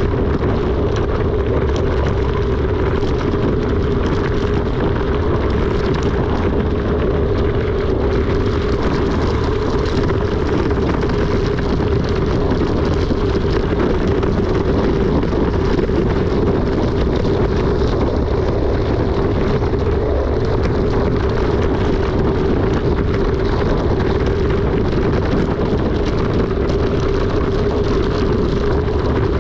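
Mountain bike coasting downhill at speed: a steady loud rush of wind and tyre noise with a constant hum running through it, and faint small clicks and rattles from bumps.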